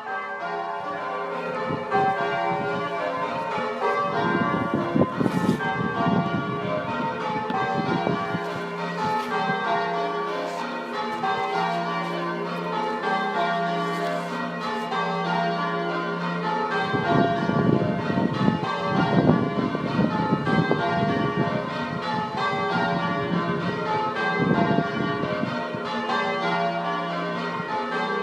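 A ring of six church bells, five Pennington bells and a 13 cwt Taylor tenor in F, rung full circle one after another in an unbroken sequence, each stroke ringing on over the next.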